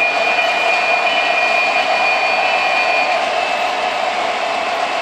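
O-gauge model diesel locomotives and freight cars running on track, a steady mechanical running noise. A high steady whine drops out about three seconds in.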